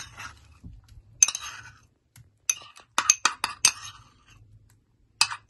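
Metal spoon clinking and scraping against a small bowl while scooping out ginger-garlic paste: a single tap a little over a second in, then a quick run of sharp taps between about two and a half and four seconds in.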